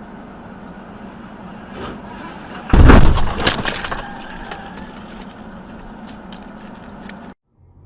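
Steady road noise, then about three seconds in a loud vehicle collision: a heavy crash with breaking and cracking, followed by scattered ticks of falling debris. The sound cuts off abruptly near the end.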